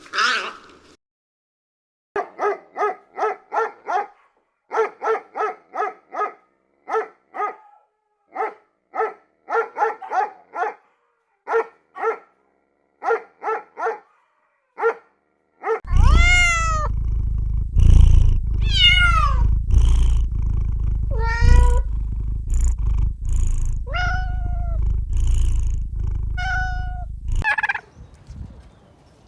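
Animal calls in two recordings: first a long run of short, pitched calls, several a second in little groups, then from about halfway a string of high calls that fall in pitch, over a steady low rumble that stops near the end.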